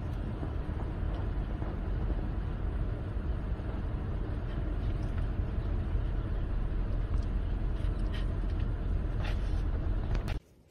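Steady low rumble of a vehicle's running engine and cabin noise, with a few faint clicks, cutting off suddenly near the end.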